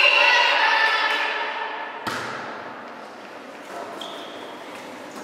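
A single sharp smack of a hand striking a volleyball on the serve about two seconds in, ringing out in the gym's reverberation. Voices fade away before it.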